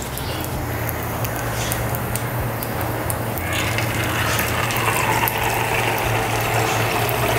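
Jalebi batter frying in hot sunflower oil: a steady sizzle with fine crackling, getting louder about halfway through.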